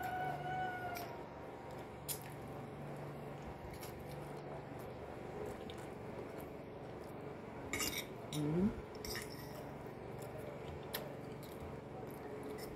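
Quiet room background with a few light clinks of a fork against glass bowls. A rooster's crow tails off at the very start, and a short rising call comes about eight and a half seconds in.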